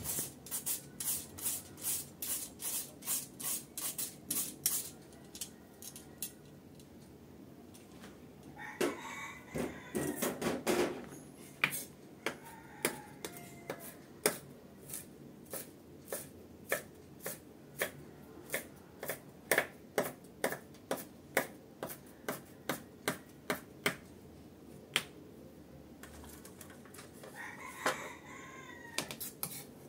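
Kitchen knife mincing shredded carrot on a wooden cutting board: quick chops about four a second at first, then slower, spaced chops. Twice, around ten seconds in and near the end, a longer wavering sound is heard in the background.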